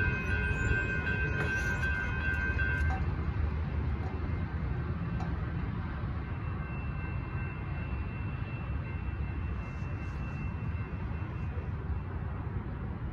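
Railroad crossing bell ringing while the gate arms rise, then cutting off about three seconds in. Under it is a steady low rumble from the train that has just cleared the crossing.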